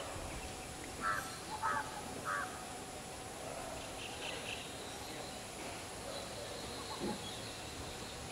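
A bird giving three short, rough calls about half a second apart, about a second in, over a steady outdoor hiss, with a few faint high chirps around the middle.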